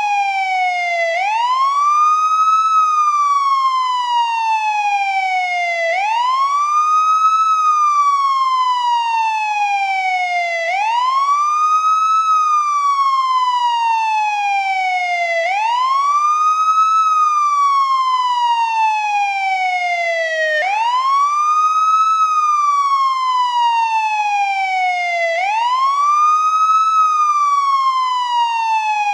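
Police siren in wail mode: a steady, repeating cycle of a quick rise in pitch and a slower fall, about one cycle every five seconds.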